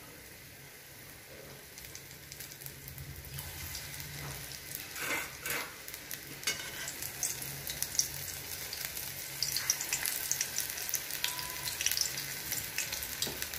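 Gram-flour-battered onion rings deep-frying in hot oil in a kadhai: a steady fizzing sizzle full of small crackles. It grows louder and busier about halfway through, as a second ring goes into the oil.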